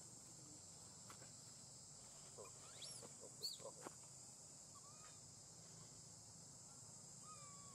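Faint, steady high-pitched drone of insects, with a quick cluster of short chirping calls about halfway through.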